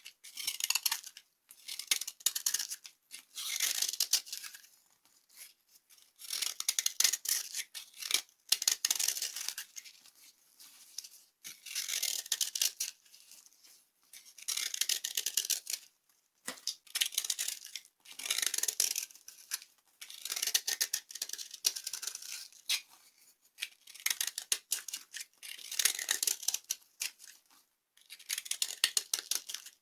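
Dry soap crunching and crumbling as it is crushed, in repeated crackly bursts about every one to two seconds.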